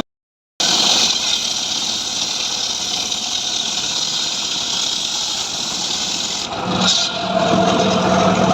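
After a half-second dropout, an engine runs steadily with a dense, hissy sound. About seven seconds in, a steady low hum joins it.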